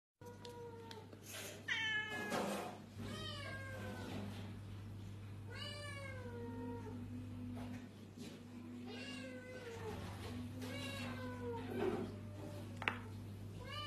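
A domestic cat meowing over and over, about eight drawn-out meows that rise and fall in pitch, over a steady low hum, with one sharp tick near the end.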